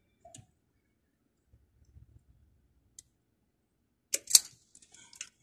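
Hand tool clicking on thermostat control wires: a few faint clicks, then a loud cluster of sharp clicks and snaps about four seconds in, followed by smaller clicks.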